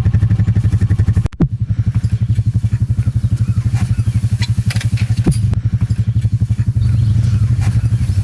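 Four-wheeler (ATV) engine running steadily while driving, an even pulsing low note, with a few light clatters. The sound drops out briefly about a second in.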